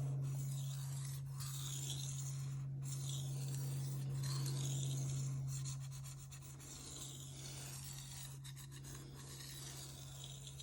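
Knife blade stroked along a Shapton Rockstar 1000-grit whetstone, a scratchy rasp that swells and fades with each stroke and grows fainter after about six seconds. A steady low hum runs underneath.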